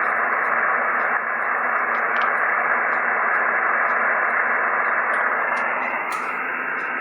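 Steady hiss of band noise from a ham radio receiver tuned to single sideband between transmissions, limited to a narrow voice-width band.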